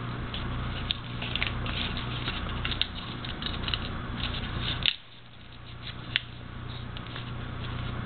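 Paper crinkling and rustling in small crackles as hands fold an origami flapping bird, pushing its second point up. The crinkling stops about five seconds in, leaving a low hum and a single tick.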